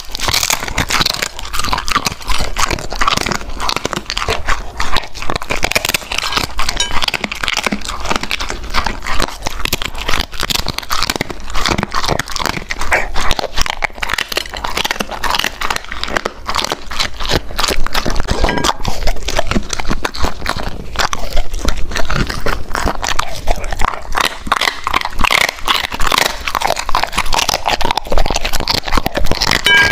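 Golden retriever biting and chewing crunchy food close to the microphone: a dense, unbroken run of crisp crunches and chews.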